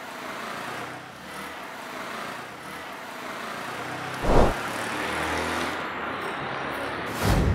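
City street traffic noise, a steady hum of cars. About four seconds in comes one short loud thump, and a louder rumbling burst starts near the end.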